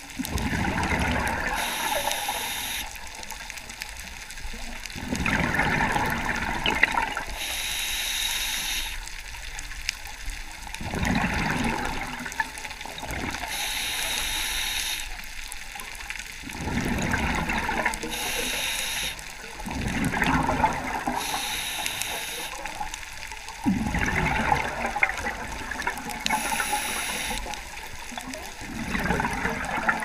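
Scuba diver breathing through a regulator: a hissing inhale alternates with a louder burst of bubbling exhaust, roughly one breath every five seconds.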